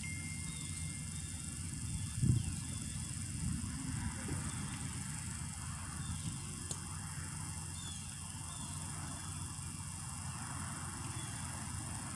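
Quiet outdoor background: a low steady rumble with a few faint high chirps, and a single thump about two seconds in.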